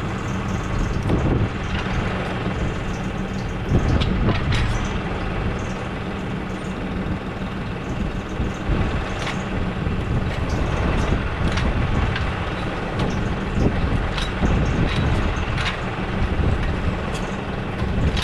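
2020 Case IH tractor's diesel engine running steadily while its hydraulics cycle a newly installed hydraulic tilt link to purge air from it, with scattered short knocks and clunks throughout.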